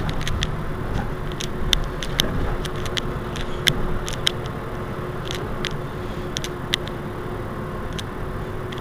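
Mercedes-Benz Citaro C2 Euro 6 city bus running with a steady low rumble and hum, with frequent irregular sharp clicks and rattles over it.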